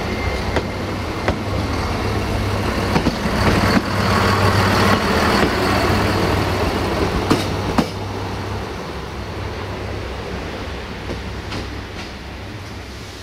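Siemens Desiro VT642 diesel multiple unit passing close by, its underfloor diesel engine humming under the running noise of the cars, with wheels clicking sharply over rail joints. About eight seconds in it drops to a quieter, steadier running sound that fades toward the end.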